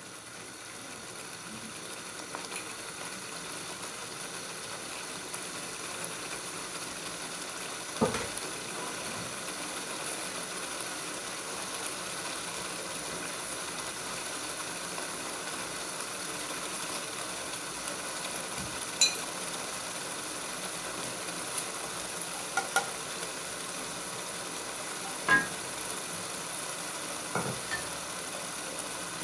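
Potato and tomato masala sizzling steadily in a nonstick pot, with a few short sharp taps, about eight and nineteen seconds in and several more near the end.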